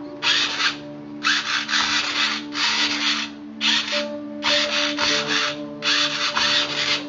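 Electric drive motor and gears of an RC truck whirring in short bursts, about eight in a row, as the throttle is pulsed from a phone app.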